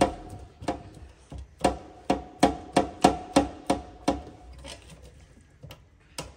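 Spatula chopping and stirring cooked mince in an air fryer basket, knocking against the basket about three times a second. The knocks thin out and grow fainter after about four seconds.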